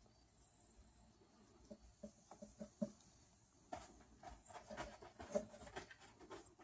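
Faint scattered soft taps and rustling of ferrets stirring and moving about in their bedding, sparse at first and busier from about four seconds in.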